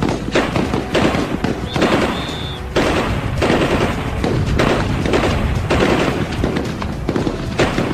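Rapid gunfire from weapons on a firing range, in a string of bursts about a second long with short breaks between them.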